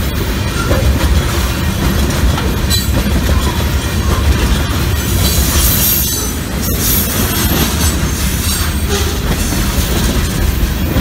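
A freight train's cars, tank cars, covered hoppers and boxcars, rolling past at close range: a loud, steady rumble of steel wheels on rail with clicks and clatter from the joints, and a brighter high hiss about five to seven seconds in.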